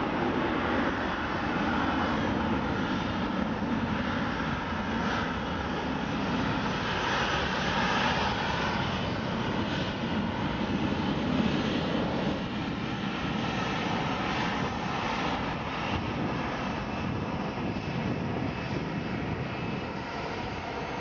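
Boeing 747-8F's jet engines running with a steady rumble and hiss, slowly growing fainter.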